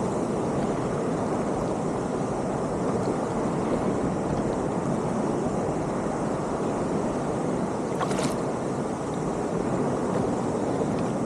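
Steady rushing noise of wind and sea around a kayak, with a brief hiss about eight seconds in.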